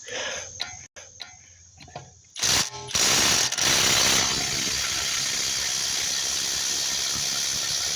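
Milwaukee M12 Fuel 12-volt impact driver on speed 3, hammering rapidly on a car's lug nut, starting about two and a half seconds in after a few light clicks. It is loudest for its first second and a half, then runs on steadily; it is breaking the lug nut loose.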